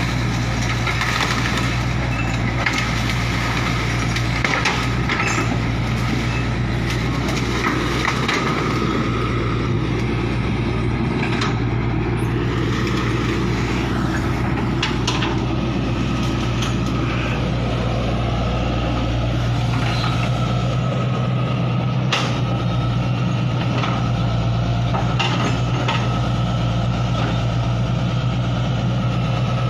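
Excavator's diesel engine running steadily with a constant low hum, with a few sharp knocks through it.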